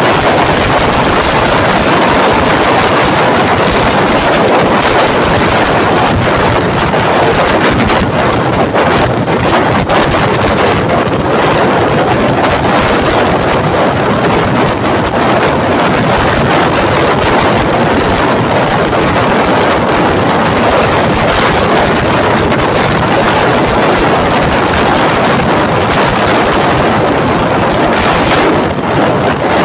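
Loud, steady wind rush on a handheld phone's microphone while riding a motorcycle, the wind noise covering the motorcycle's engine and road noise.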